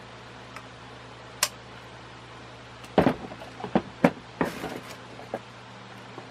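Hard objects knocking and clattering as they are handled, a single click and then a quick run of sharp knocks over about two seconds, over a steady low hum.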